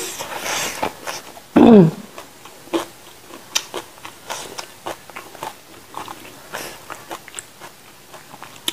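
Close-up eating sounds: chewing with wet mouth clicks and smacks, and a short hum falling in pitch about one and a half seconds in.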